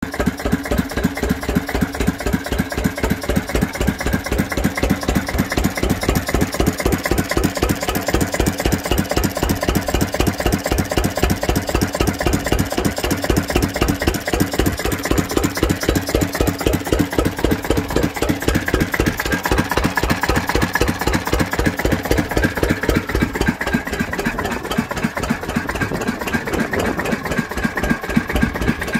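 McDonald type C single-cylinder diesel stationary engine running at idle, its firing strokes making a steady, even beat.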